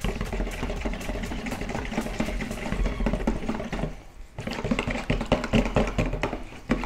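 Wire whisk stirring raw soap batter in a mixing bowl: a fast, steady clicking and scraping of the wires against the bowl, with a short pause about four seconds in.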